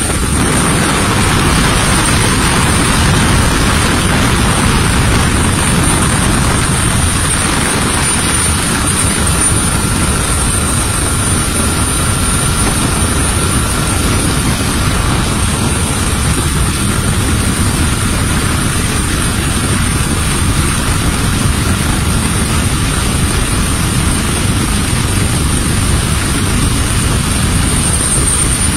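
Helicopter rotor and engine noise heard from aboard, loud and steady throughout, with a thin high whine held over it.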